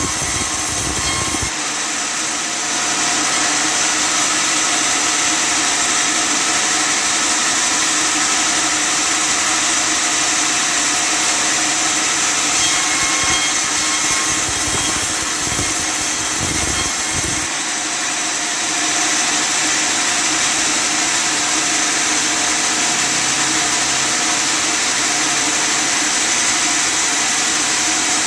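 Custom-made table sawmill running steadily and sawing wood, a continuous loud machine noise with a hiss-like high end that shifts slightly a second or two in and again about two-thirds of the way through.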